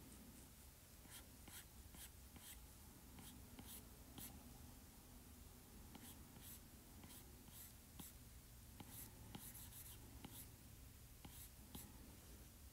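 Faint stylus strokes on a tablet's glass screen: irregular light ticks as the pen nib taps down, with a soft scratch of lines being sketched.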